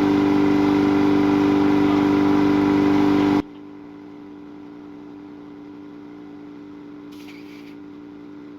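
A machine running with a loud, steady hum, which drops off abruptly about three and a half seconds in to a much quieter steady hum, with a short hiss near the end.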